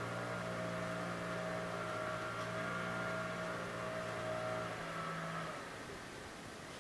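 A motor's steady hum with several held tones, low and mid-pitched, that cuts off about five seconds in.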